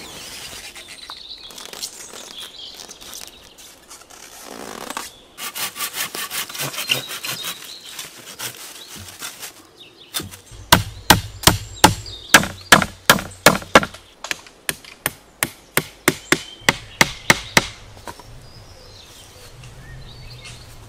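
A folding pruning saw cutting through a green branch. A short run of quick rasping strokes comes about five seconds in. Then steady back-and-forth strokes, about three a second, run for some eight seconds.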